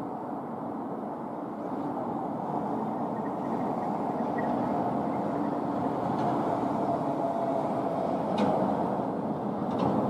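Steady hum of distant road traffic, with a couple of faint clicks near the end.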